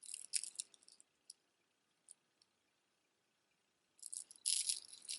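Beaded jewelry clicking and rattling as it is handled: a few light clicks at the start, then a dense burst of bead rattling near the end.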